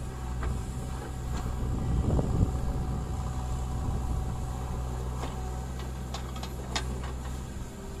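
JCB 3DX backhoe loader's diesel engine running steadily under digging load as the backhoe scoops and lifts a bucket of soil, swelling louder about two seconds in. A few short sharp clicks or knocks come later on.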